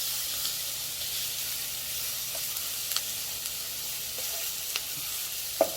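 Steak and vegetables frying in butter on a griddle: a steady sizzle, with a few light clicks near the end.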